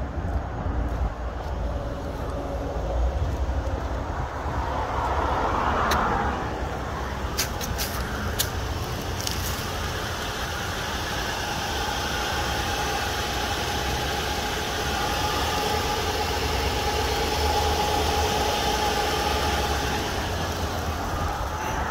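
Steady low rumble of motor vehicle noise, with a few short clicks about seven to nine seconds in.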